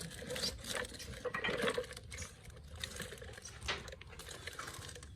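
Irregular clattering and clinking of small hard objects knocking together.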